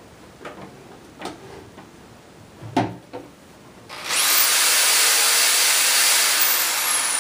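Electric drill plugged into a power inverter: a few knocks and clicks as it is plugged in and picked up, then about four seconds in the motor spins up with a quick rising whine and runs steadily at full speed.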